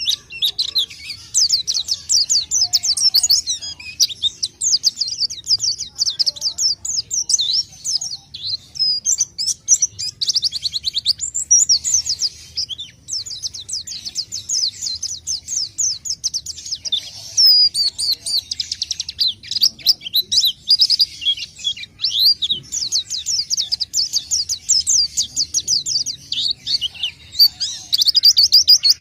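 White-eye (pleci) singing a long, rapid, high twittering song almost without pause; this is a lure call (suara pikat) used to draw wild white-eyes in.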